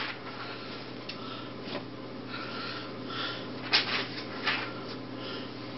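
Quiet room tone with a steady low hum, and a few faint rustles and clicks about two thirds of the way through.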